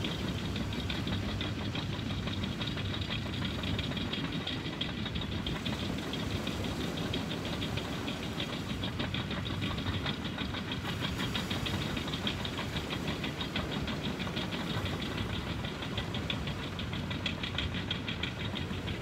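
Tractor engine running steadily, with a rapid, even ticking clatter over a low rumble.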